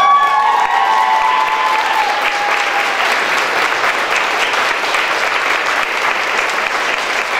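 Crowd applauding steadily, with a few voices holding a cheer over the clapping for the first three seconds before it dies away.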